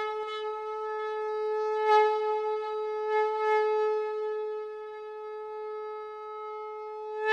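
A conch shell (shankh) blown in one long, steady note, swelling slightly a couple of times, with a brief break near the end.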